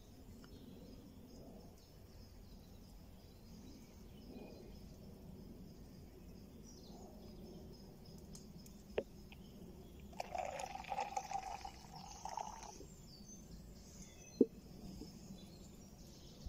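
Quiet woodland ambience with faint bird chirps. About ten seconds in comes a rushing, splashing liquid sound lasting about two and a half seconds, and there are two sharp clicks, one just before it and one after.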